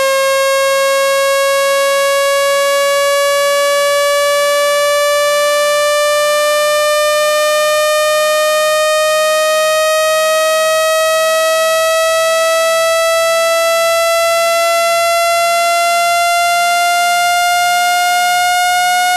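Synthesized speaker-cleaning tone: one steady, buzzy tone rich in overtones, gliding slowly and evenly upward in pitch, played loud to shake sand and dust out of a phone speaker.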